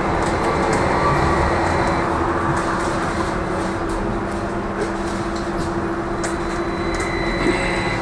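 Trolleybus running, heard from inside the cabin: a steady whine from the electric traction drive over tyre and road noise, with a higher whine joining near the end.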